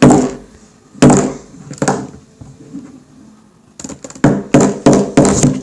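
Sharp hard knocks, three single strikes about a second apart and then a quick run of six or seven near the end, as a loose Rubik's cube piece is forced back into the cube.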